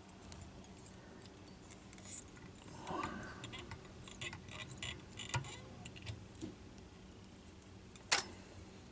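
Faint small metallic clicks and ticks of a whip-finish tool and tying thread being worked around a fly's head in the vise, with one sharp click about eight seconds in.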